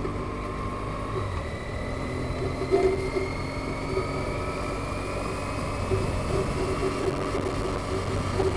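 Vehicle on the move: a steady engine and road rumble, with a thin whine that slowly rises in pitch.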